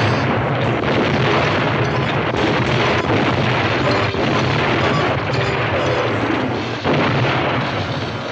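Sound effects of an explosion and fire: a continuous rush of burning with crackling, broken by a few sharp bangs, about two, four and seven seconds in.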